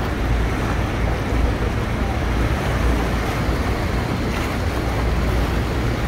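Steady rush of white water from the Rhine Falls and the churning river around a boat, with wind rumbling on the microphone.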